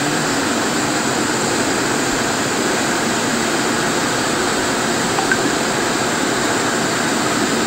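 Muddy floodwater from a rain-swollen river rushing across a road and pouring over its edge in a steady, unbroken rush.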